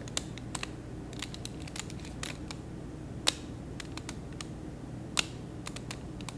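Plastic clicks of a Z-Cloud Pyraminx being turned, its ball-bearing mechanism snapping each turn into place. The clicks are irregular, with two sharper ones about three and five seconds in.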